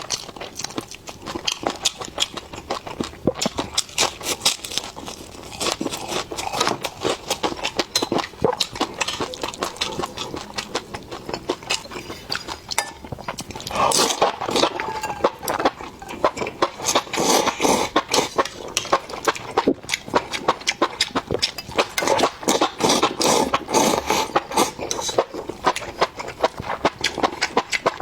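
Close-miked chewing and crunching of food by a person, a dense run of wet clicks and crackles, heavier and fuller from about halfway through.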